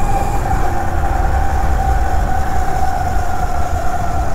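Burromax electric mini bike's chain-driven motor whining steadily while cruising, the pitch easing down a little, with wind rumbling on the microphone.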